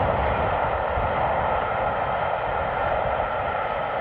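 Steam express of the three-cylinder A1 Pacific 60163 Tornado running at speed, heard from afar as a steady roar with a low rumble beneath, easing slightly by the end.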